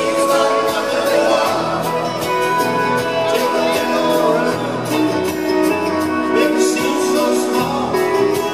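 Live band playing an instrumental passage with acoustic guitars, keyboard and drums, with a steady beat.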